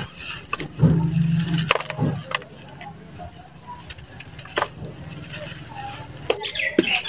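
Dry red dirt chunks crushed in the hands and crumbling into a tub of water: many sharp, irregular crunches and cracks with grit falling into the water, over a steady low hum.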